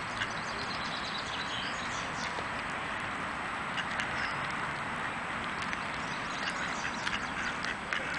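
Mallard ducks quacking over a steady hiss of background noise.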